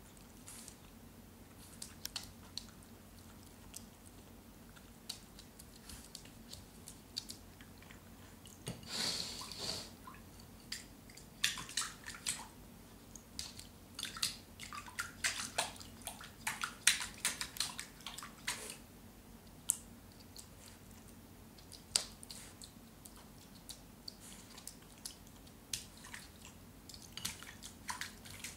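Eurasier puppy lapping and splashing water in its bowl, pawing at it in play: irregular wet laps and splashes, sparse at first, coming thick and fast through the middle with a louder splashy stretch about nine seconds in.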